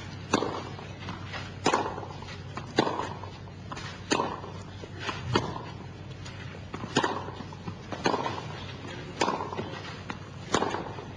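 Tennis rally: racket strikes on the ball and ball bounces, a sharp crack repeating roughly every second and a bit, about nine times.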